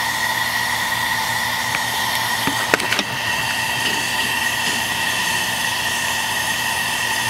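Coal-fired live-steam model of ET&WNC locomotive No. 12 standing in steam, giving a steady steam hiss with a faint steady whine in it. A few light metallic clicks come about three seconds in.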